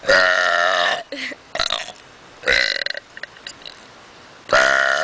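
A person burping loudly: a long, wavering burp of about a second at the start, a few shorter ones in the middle, and another long burp beginning near the end.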